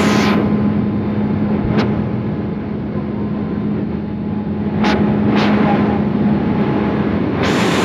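Hydroelectric generating units running in a power station's machine hall: a loud, steady machine hum with one strong low tone over an even rushing noise, broken by a few brief clicks.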